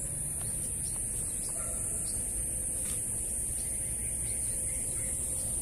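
Outdoor ambience: a steady high-pitched insect drone over a low rumble, with a few faint short chirps from birds.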